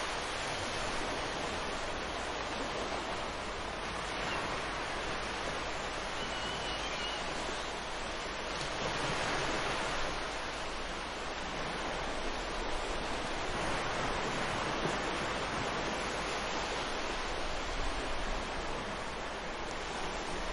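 Ocean surf: a continuous rushing wash of waves that swells and eases slowly every few seconds.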